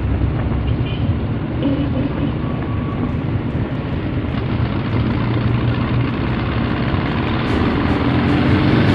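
Motorcycle engine running while riding, with wind rushing over the bike-mounted camera's microphone; it grows a little louder near the end.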